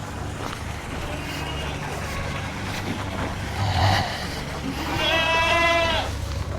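Penned goats and sheep bleating: one long wavering bleat about five seconds in, with a fainter call a second or so before it, over a low steady rumble.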